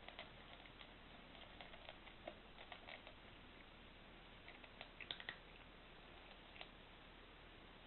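Cat eating dry kibble: faint, irregular little crunches and clicks, in clusters about two to three seconds in and again around five seconds in.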